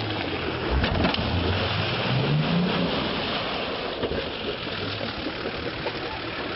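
Off-road 4x4 engine running and revving as the vehicle ploughs through deep mud and water, with a steady wash of splashing. The engine's pitch rises briefly about two seconds in.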